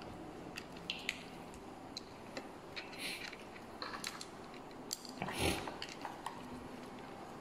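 Steamed shrimp being peeled by hand and eaten: scattered small clicks and cracks of shell, with chewing, and one louder brief noise about five seconds in.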